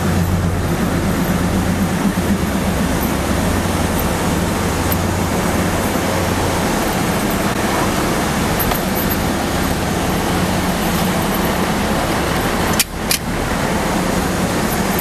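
Steady rumble of stopped trains' machinery running close by, with a low hum that fades out about seven seconds in. The sound briefly breaks off with a click near the end.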